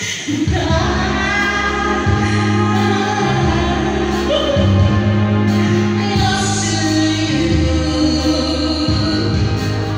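Amplified singing into handheld microphones over loud backing music, with a bass line stepping between held low notes. The music comes in about half a second in.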